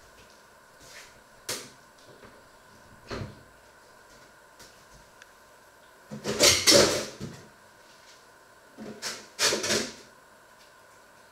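Knocks and clatter from a low kitchen cupboard being opened and rummaged through: a couple of light clicks, then a loud rattling clatter about six seconds in and two more knocks near the end.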